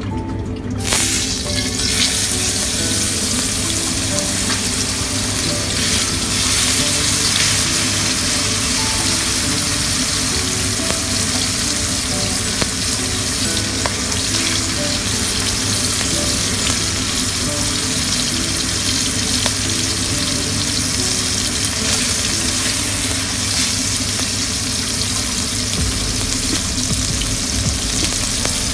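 Oil sizzling steadily in a hot wok, starting about a second in; a raw beef steak is laid into it partway through and fries.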